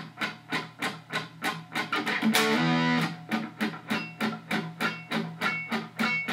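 Distorted electric guitar power chord slid from D up to E and left to ring about two seconds in, with a second one starting near the end. Under it a hi-hat keeps steady time at about three ticks a second.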